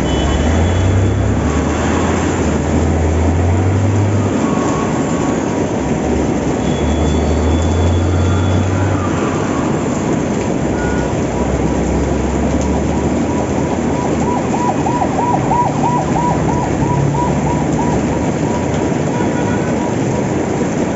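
Steady rain on a city street, with the low rumble of passing traffic. A siren warbles rapidly about two-thirds of the way through, and a rising siren tone starts near the end.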